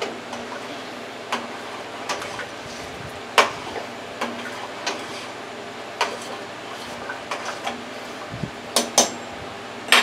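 A metal spoon clinking and knocking against the side of a stainless steel stockpot as vegetable soup is stirred, in scattered single knocks roughly a second apart, the loudest about three and a half seconds in.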